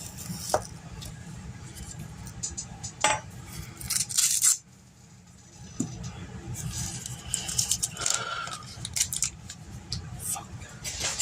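Kitchen handling sounds: scattered clinks, taps and knocks of utensils and dishes, with a louder clatter about four seconds in, over a low steady hum.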